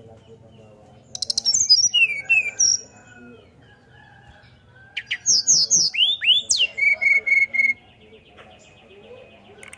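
Brown-chested jungle flycatcher singing in fluting whistled phrases: two bursts of high, clear notes with quick downward slurs, about a second in and about five seconds in, the second ending in a run of short repeated notes.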